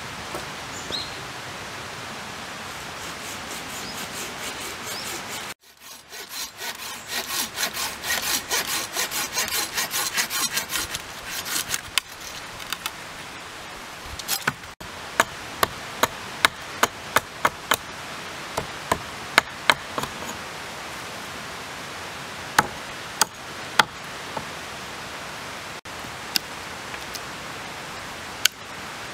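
Folding pruning saw cutting through a green sapling: fast, rhythmic back-and-forth strokes for about five seconds after a steady outdoor hiss. This is followed by a string of sharp, separate knife cuts into the fresh wood, roughly one a second, as the pole is shaved and notched.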